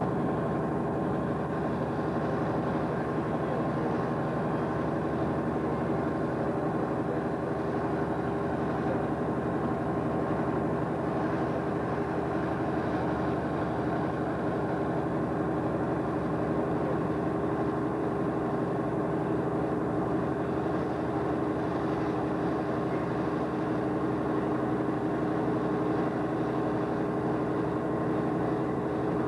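Heavy engine of an American Hoist derrick crane running steadily during a heavy lift, a constant drone with several held tones over a low rumble.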